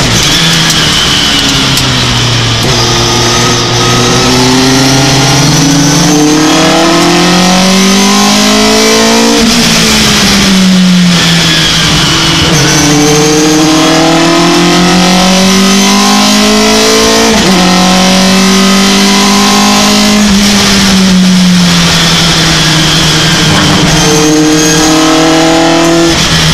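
Race pickup truck's engine heard from inside the cab at racing speed. Its pitch climbs as it revs up through the gears and drops sharply at each gear change or lift for a corner, several times over.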